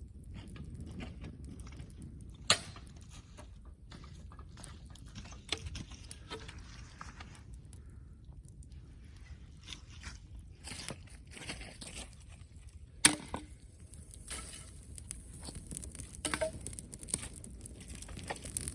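Wood fire crackling, with scattered small snaps and two loud sharp pops, one a couple of seconds in and one about two-thirds of the way through.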